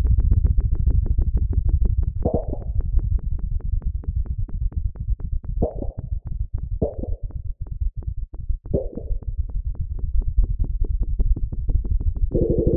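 Synthesized sonification of earthquake data: a fast, even ticking pulse over a low drone, with a few brief pitched swells and a sustained higher chord coming in near the end. The pulse's tempo follows the daily number of quakes, and the pitch of the tones follows their average depth.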